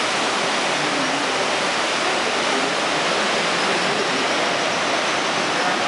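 Steady rushing roar of ocean surf washing into a sea cave, an even noise with no breaks or rhythm.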